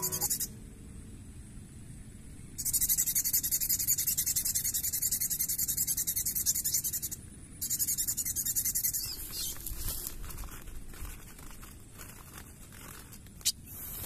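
Rapid, high-pitched squeaking from styrofoam rubbed on a drinking glass: a bird-trapper's lure imitating the distress cries of a trapped bird. It comes in long runs that stop briefly just after the start and again about seven seconds in, then gives way to faint scattered clicks and rustling.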